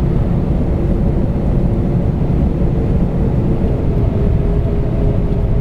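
Steady cabin noise inside an Airbus A321 holding at the end of the runway with its jet engines idling: a low rumble with a faint steady hum.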